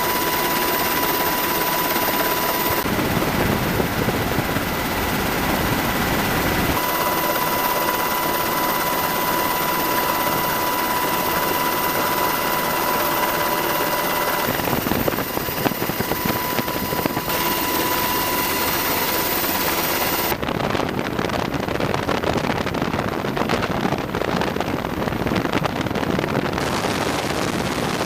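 US Army AH-64 Apache attack helicopters in flight: steady engine and rotor noise with a high steady whine in some stretches. The sound changes abruptly several times, as at cuts between clips.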